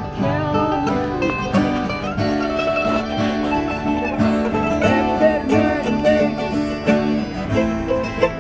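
Small acoustic string band (mandolin, several acoustic guitars and a ukulele) playing an instrumental passage together, with steady strummed chords under picked melody notes.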